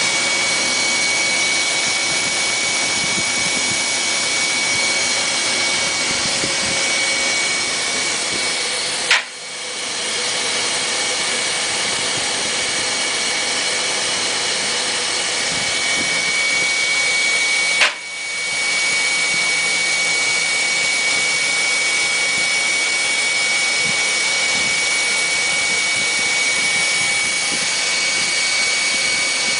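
RPS Rhythm selective soldering machine running, a steady whir with a constant high whine, like fans or an extractor. Two sharp clicks come about nine seconds apart.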